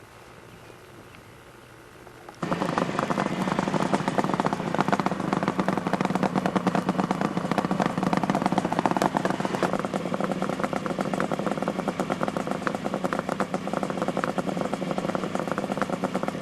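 A 1975 Kawasaki H1 500's two-stroke three-cylinder engine, freshly rebuilt with ported cylinders, comes in abruptly about two seconds in and runs steadily with a fast, crackling exhaust beat.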